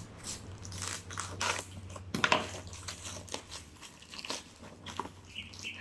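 Packaging being handled and pulled open: irregular crackles, clicks and crunches.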